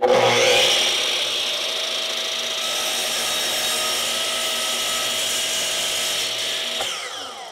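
Sliding compound miter saw starting with a sudden whine and running steadily while the blade is brought straight down through a board. Near the end the trigger is released and the whine falls in pitch as the blade coasts down toward a stop.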